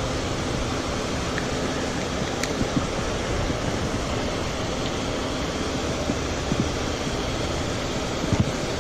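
Steady rush of wind and water, with a few faint low knocks near the end.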